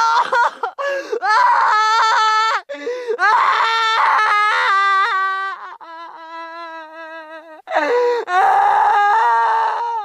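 A high-pitched voice crying in long, loud wailing sobs whose pitch bends up and down, with a quieter, drawn-out whimper between them.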